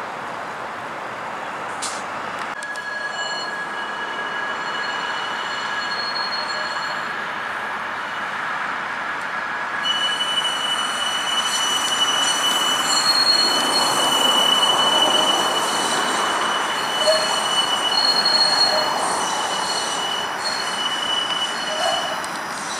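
Flexity Outlook streetcar's steel wheels squealing as it rounds a tight curve of track at low speed: several steady high-pitched tones that set in a couple of seconds in and grow louder in the middle, over a low rumble.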